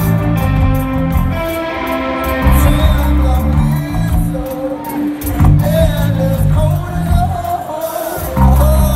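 Live rock band playing: electric guitars strumming chords over bass and drums, with a lead vocal coming in about halfway.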